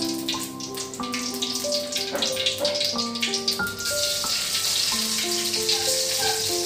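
Instrumental background music with a melody of held notes. About four seconds in, mustard seeds hit hot cooking oil in a metal pan and begin sizzling with a steady hiss.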